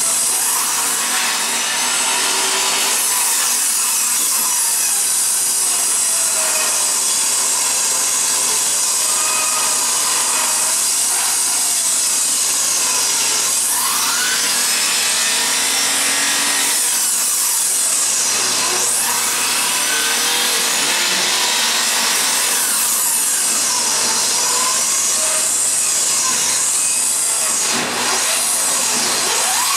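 A power tool running continuously in a woodshop: a loud, unbroken rasping hiss with slow sweeping shifts in tone and no stroke-by-stroke rhythm.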